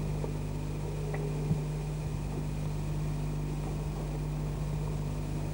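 A steady low hum over a background hiss, with a single faint click about one and a half seconds in.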